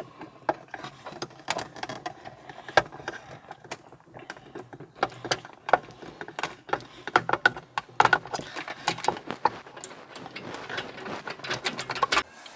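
Two small screws being unscrewed from a car's overhead-console sunglasses holder: an irregular run of small clicks, ticks and rattles from the screwdriver and plastic trim.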